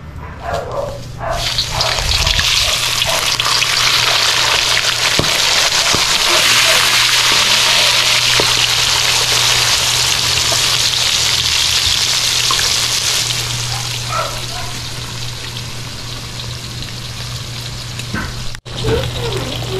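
Pieces of marinated milkfish (bangus) frying in hot cooking oil, a dense sizzle that starts suddenly about a second in as the fish goes into the pan and eases off somewhat after several seconds. The belly pieces are dusted with flour to keep them from spattering.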